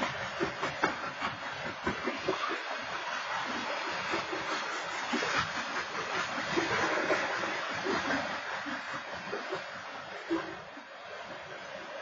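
Freight train cars rolling through a grade crossing: a steady rush of steel wheels on rail with irregular clicks and clacks, easing slightly after a sharp knock near the end.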